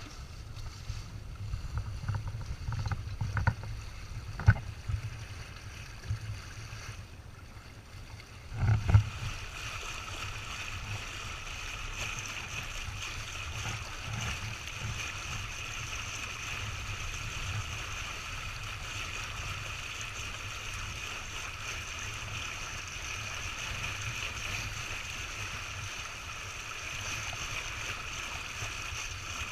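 Water rushing along the hull of a Windrider 17 trimaran under sail, with wind buffeting the microphone. There are a few knocks in the first nine seconds, then a louder knock, after which a steady rushing hiss of water takes over.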